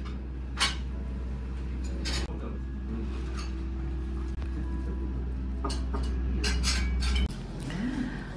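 Cutlery and china clinking at a breakfast table over a steady low room hum: a sharp clink about half a second in, scattered clinks after, and a quick cluster of them near the end. The hum drops away suddenly near the end.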